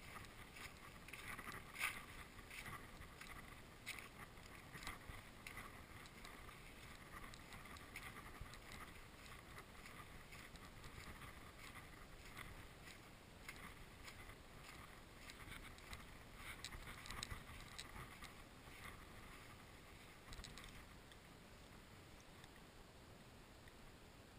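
Faint, irregular crunching and clicking footsteps on a sandy, shell- and debris-strewn shore, with one sharper click about two seconds in; the steps die away about twenty seconds in.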